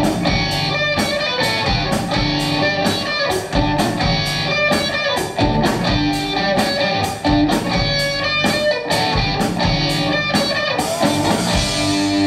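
Live rock band playing: a Les Paul-style electric guitar with bass and drums, the cymbals keeping a steady beat of about two and a half strikes a second. Near the end the beat gives way to a ringing cymbal wash.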